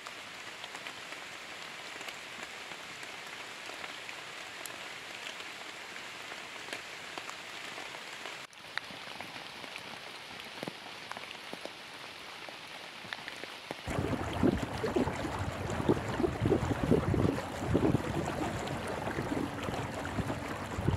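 Steady rain falling through trees and onto a camouflage bedchair cover, an even hiss with scattered drop ticks. About two-thirds of the way in it changes to gusty wind buffeting the microphone over choppy lake water.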